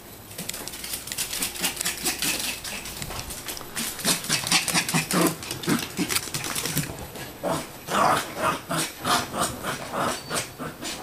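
A Pomeranian in a play frenzy (zoomies): quick irregular clicks and patters of claws and paws on a hardwood floor and couch, with short dog vocal sounds mixed in near the end.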